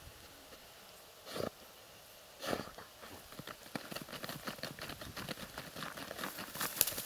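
Laika hunting dogs sniffing and nosing through a pile of dry reeds and mud. Two short, louder puffs come about one and two and a half seconds in, followed by a quick run of small crackles and rustles of reed stalks that grows busier toward the end.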